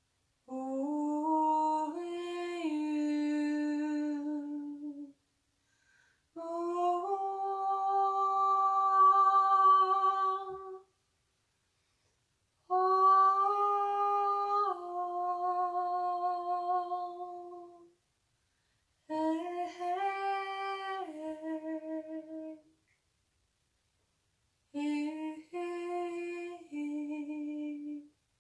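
A woman singing wordless vocal toning in five long held phrases, each stepping between two or three sustained notes, with short silences between them.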